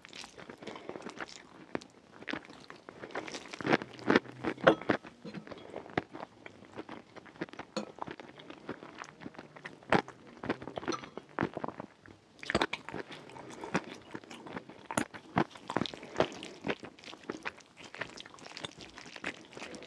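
Close-miked eating sounds: a person chewing rfissa, with irregular wet mouth clicks and smacks. The sounds come thickest about four to five seconds in and again from about twelve and a half seconds in.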